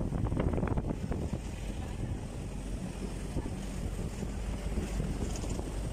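Wind buffeting the microphone over a steady low rumble from a moving ride.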